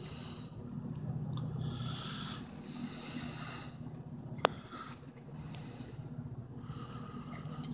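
Someone breathing close to the microphone, slow hissing breaths a second or two apart, over a steady low hum. A single sharp click about four and a half seconds in.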